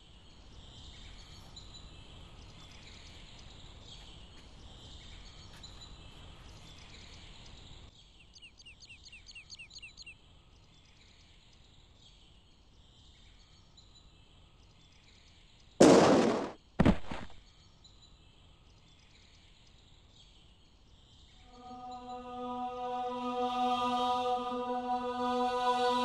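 Faint outdoor background noise, with a quick run of high chirps about eight seconds in and two loud short bursts around sixteen seconds. Near the end a sustained choral chord swells in, a heavenly-choir sound effect.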